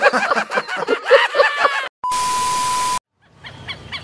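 A man laughs for about two seconds. Then comes a one-second beep, a steady tone over a hiss that starts and stops abruptly. After a short silence, chickens begin clucking faintly near the end.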